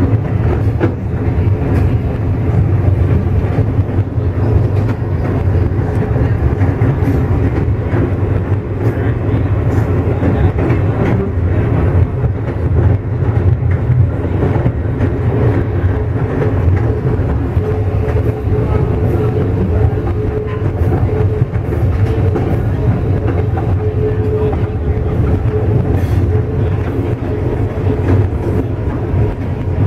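Diesel locomotive in motion, heard from its front walkway: a loud, steady low rumble of the engine and wheels on the rails, with scattered clicks from the track. A faint whine comes in for several seconds about halfway through.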